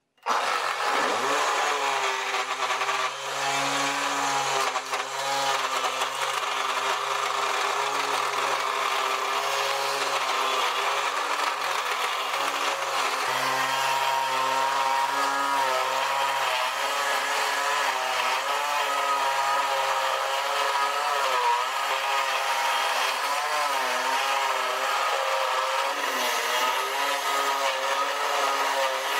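Angle grinder switched on, spinning up within the first second, then running steadily as the drive of a homemade wood lathe while a hand chisel scrapes the spinning wooden workpiece; the motor's pitch wavers now and then under the cut.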